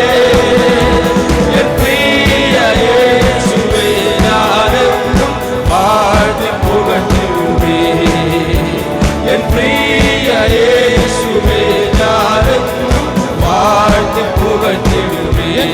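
Worship band music with a steady drum beat under a gliding melody line, playing between sung lines of a Malayalam Christian worship song.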